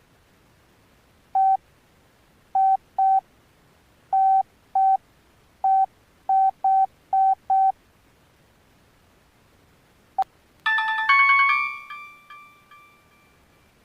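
Alcatel OneTouch Retro flip phone's key beeps: about eleven short beeps, all of one pitch, at uneven intervals as buttons are pressed to move through the menu. About ten seconds in there is a click, then a ringtone preview: a bright chime of several notes that rings out and fades over a couple of seconds.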